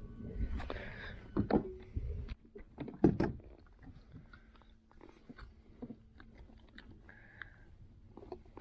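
Close handling noises aboard a fishing kayak while a caught bass is dealt with: low rumbling knocks and rubbing for about two seconds, two sharp knocks about one and a half and three seconds in, the second the loudest, then scattered faint ticks and taps.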